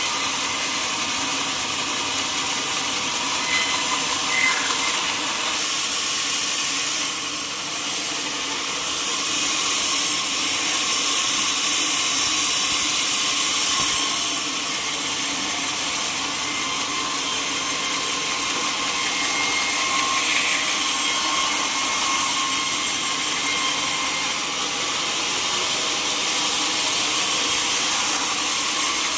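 Sawmill saw running and cutting teak timber, a steady mechanical hum with a high hiss from the blade in the wood.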